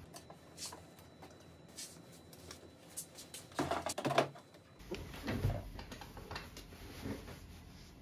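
Small objects being handled and set down on a table: scattered light clicks and knocks, with a louder clatter of knocks about three and a half to four seconds in and a few duller knocks just after five seconds.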